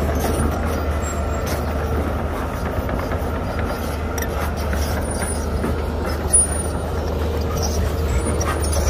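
Heavy diesel engine of a dump truck or excavator running steadily with a low rumble. There is a brief sharp sound about six seconds in.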